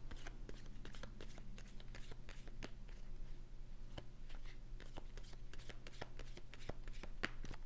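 A deck of round oracle cards being shuffled by hand: a quick, irregular patter of small card flicks and rustles.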